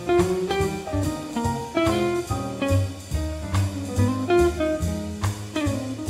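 Live small-group swing jazz: an archtop guitar takes a solo of quick single-note runs, backed by double bass and drum kit.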